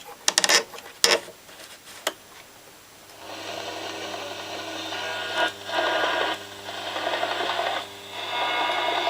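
STC valve radio's speaker giving out hiss and static over a steady low hum, after a few sharp clicks in the first two seconds. The hiss swells and dips twice, as of the set picking up noise between stations.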